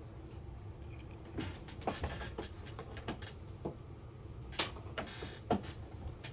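Scattered light clicks and taps of small tools and iPhone parts being handled during a repair, over a low steady hum.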